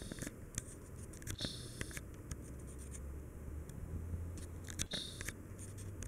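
Harbor Breeze Armitage hugger ceiling fan running with a low, steady hum, overlaid by scattered, irregular small clicks and scratchy scrapes.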